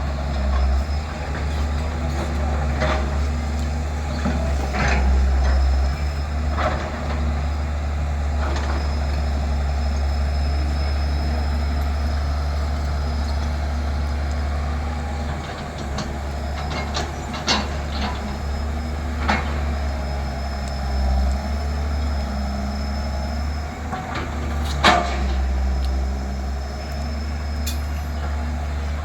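JCB 3DX backhoe loader's diesel engine running steadily at work, with a few sharp metallic clanks from the bucket and arm, the loudest one about 25 seconds in.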